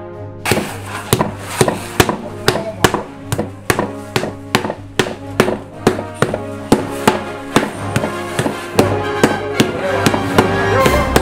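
Cleaver and wooden paddle knocking hard on a wooden board as peanut brittle is pounded flat and chopped, about three sharp knocks a second, over background music.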